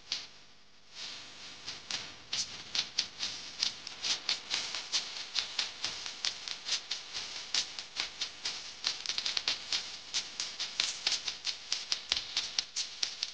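Rapid, uneven sharp clicks and rattles, several a second, beginning about a second in.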